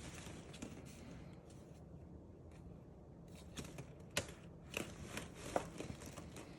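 A few light, sharp taps and clicks of small objects being handled, scattered through the second half, the loudest about four seconds in, over a faint room hum.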